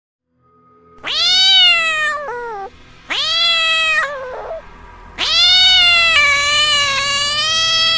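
A cat meowing three times in long, drawn-out calls, the last one the longest at about three seconds.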